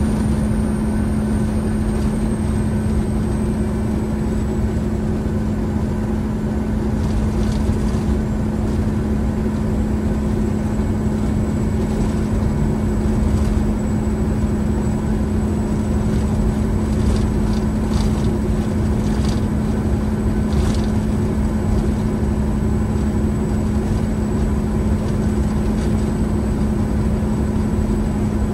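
1998 Peterbilt 379's diesel engine running steadily while the truck drives down the highway, heard inside the cab as an even low drone with road noise.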